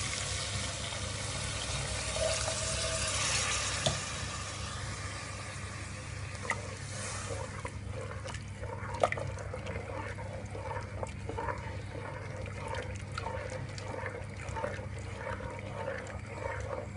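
Coconut milk being poured into a pot of hot fried masala, an even splashing pour for the first several seconds. Then a wooden spatula stirring the curry, scraping round the pot in a steady rhythm of about two strokes a second.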